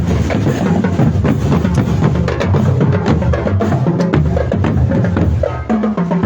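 Marching drum band playing: bass drums thudding under quick, sharp snare and percussion strokes in a steady rhythm, with a brief held note near the end.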